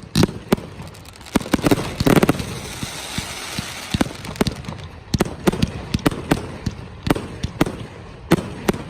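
Fireworks display: a rapid, irregular series of sharp bangs from bursting aerial shells, with a stretch of dense crackling hiss about two seconds in.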